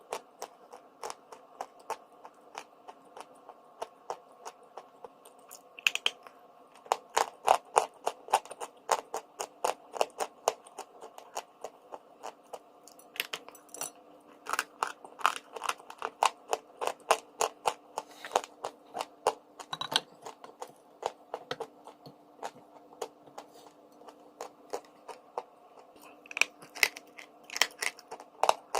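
Close-miked chewing of crunchy chalk-like lumps: rapid crisp crunches, often two or three a second, in runs broken by short pauses.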